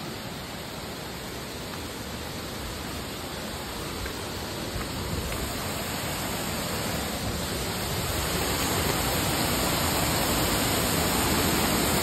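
Waterfall rushing into a rocky pool, a steady noise of falling water that grows steadily louder as the falls are approached.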